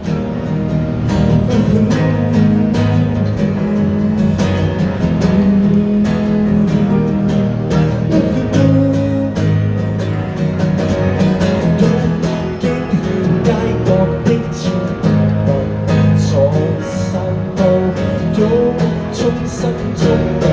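Live acoustic guitars playing an instrumental passage of a pop song, strummed chords under a plucked melody line.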